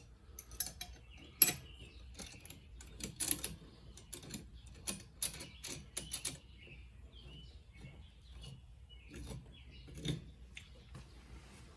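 Stainless steel tri-clamp being fitted and its wing nut screwed down by hand: irregular small metallic clicks and clinks. The sharpest comes about one and a half seconds in, a busy run follows between about three and six seconds, and another comes near ten seconds.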